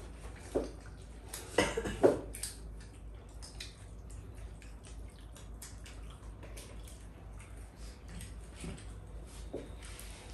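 Tableware clicking and clinking while people eat: many light taps of chopsticks and spoons against bowls and plates, with a couple of louder knocks around two seconds in.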